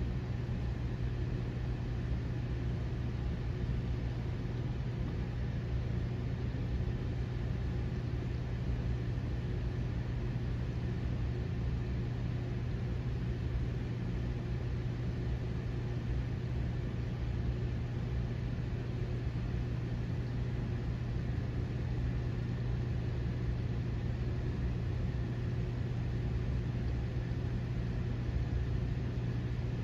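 Steady low hum with an even soft hiss: reef aquarium pumps and water circulation running.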